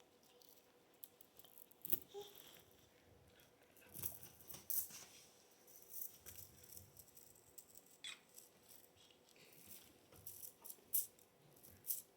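Faint rustling of bedding with scattered small clicks and ticks, coming in short bursts several seconds apart as someone shifts in bed.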